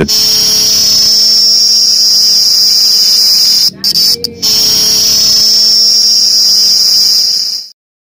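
Insect song: a loud, steady, shrill buzz that drops out briefly twice near the middle and stops shortly before the end.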